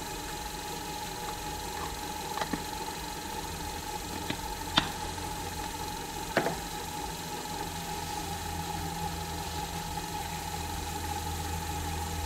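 Small benchtop cue lathe motor running steadily with a constant whine as it spins a pool cue shaft. A few light clicks are heard in the middle.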